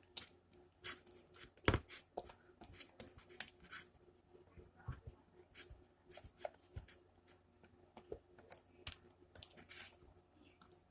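Slime mixture of glue, soap and food colouring being stirred in a bowl: faint, irregular clicks and scrapes, the loudest about two seconds in.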